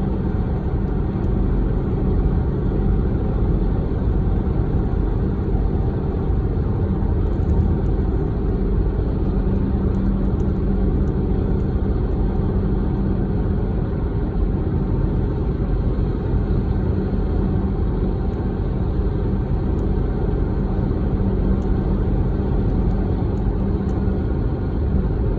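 2014 Dodge Durango on the move with a steady low road and engine rumble, over which short high-pitched chirps come in quick irregular runs. The chirping comes from the driver's side rear, and its cause is unknown.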